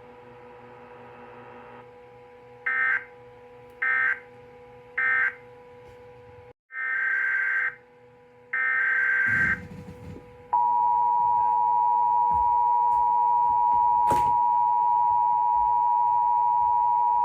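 Emergency Alert System tones. First come three short data bursts of screechy digital noise, about a second apart, which end the previous alert. After a brief dropout, longer data bursts start the next alert's header. About ten seconds in, the two-tone EAS attention signal (853 and 960 Hz) begins and holds steady and loud, with one sharp click partway through.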